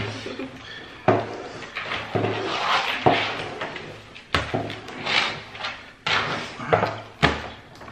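Wet, sticky slime being handled and mixed by hand, giving a series of sudden smacks and squelches, roughly one a second, each trailing off.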